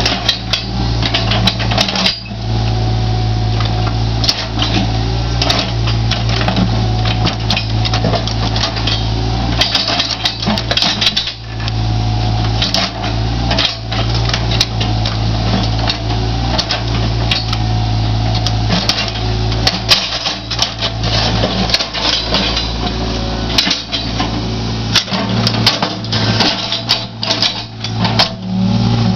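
Caterpillar 303.5 mini excavator's diesel engine running steadily, with frequent knocks and clatter of stones against the steel bucket and thumb as the old stone wall is pulled apart.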